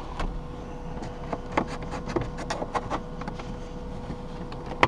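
A plastic pry tool working under a car's dashboard trim panel: scattered small clicks and creaks of plastic trim and its metal retaining clips, over a faint steady hum. A louder click comes near the end.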